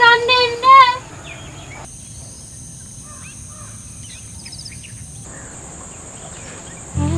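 Outdoor ambience of faint bird chirps over a steady high-pitched insect drone, after a loud, high-pitched call that bends in pitch during the first second. Soft flute-like music comes in near the end.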